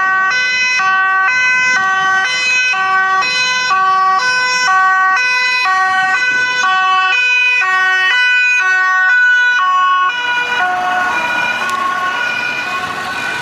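Fire engine's two-tone siren, switching steadily between a high and a low note, each held about a third of a second. About ten seconds in, the siren weakens and the noise of the aerial ladder truck's engine and tyres rises as it drives past close by.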